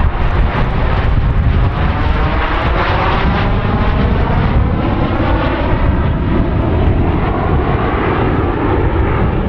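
Canadair CT-114 Tutor jets' turbojet engines passing, a loud steady rush with a whine that slides down in pitch as they go by.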